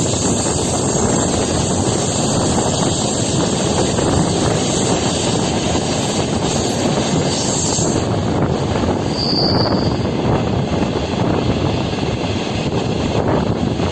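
Moving train running steadily on the rails, a continuous rumble and rush of wheels and passing air, with a brief high-pitched tone a little past halfway through.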